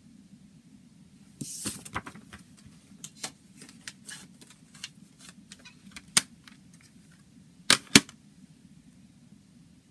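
A CD booklet and plastic jewel case being handled. A short paper rustle is followed by a run of light plastic clicks and taps, then two sharp plastic snaps close together near the end as the jewel case is pressed shut.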